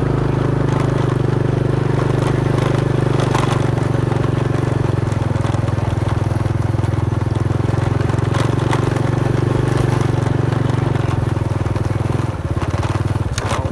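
Small motorcycle engine running steadily while ridden along a dirt track, with a few short knocks. The engine note drops about twelve seconds in.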